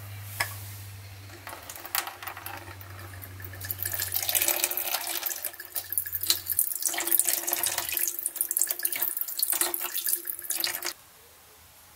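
Liquid poured from a bottle's spout into a plastic tub, filling a rust-removal bath around a screwdriver. The pouring grows louder about four seconds in and stops suddenly about a second before the end.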